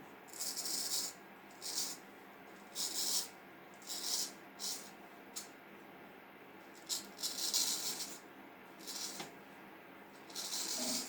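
Vintage Norton straight razor shaving a week's growth of stubble: about ten short scraping strokes, irregularly spaced, some brief and some lasting most of a second.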